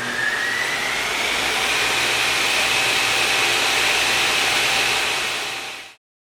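A machine running with a high whine over a rushing air noise, the whine rising in pitch as it winds up to speed and then holding steady, before the sound cuts off abruptly about six seconds in.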